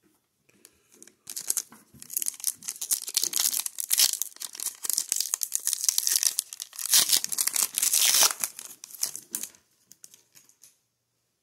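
A foil-wrapped Skybox Metal Universe hockey card pack being torn open and its wrapper crinkled, a dense crackling with two louder stretches, dying away near the end as the cards come out.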